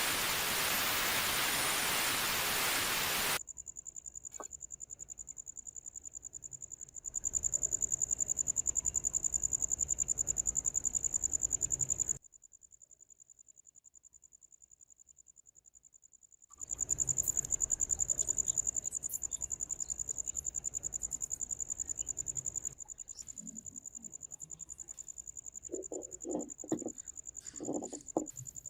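A loud steady hiss for about the first three seconds. After it comes a high-pitched, steadily pulsing cricket chirp that stops for a few seconds midway and then resumes. A few short clunks sound near the end.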